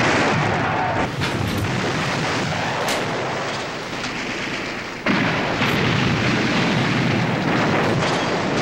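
Battle sound effects: a continuous din of explosions and gunfire, with a sharp crack about three seconds in and an abrupt cut to a louder stretch about five seconds in.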